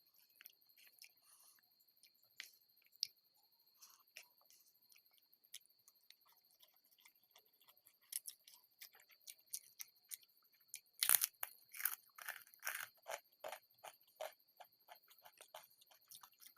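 Close-up eating sounds: a person chewing and crunching food in many short, crisp bites. The bites come sparsely at first, then grow louder and more frequent from about halfway through.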